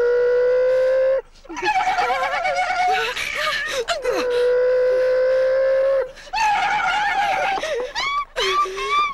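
A woman screaming: two long held screams, each about two seconds, with shorter wavering shrieks between them, and a few short rising cries near the end.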